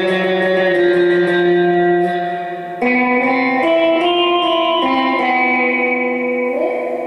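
Fender Jaguar electric guitar played clean through a Gomez El Sonido amp, a Fender Bassman clone: a held chord rings and fades, then about three seconds in a new strum starts a picked run of changing notes, with a slide up near the end.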